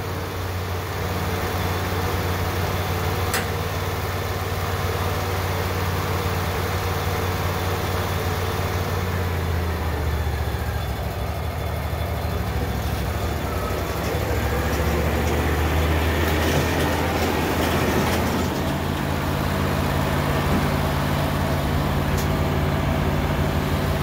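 Portable band sawmill's engine running steadily, its note shifting a few times as the sawhead is made ready for a cut.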